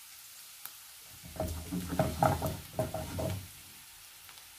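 Green beans sizzling in butter and garlic in a frying pan, with a run of clattering knocks and scrapes in the middle as they are stirred in the pan.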